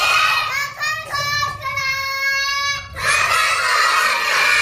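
A young girl chants a Hindi children's rhyme on her own, holding one long steady note, and then a class of small children chants the next line back in unison. The group voices are also heard briefly at the very start.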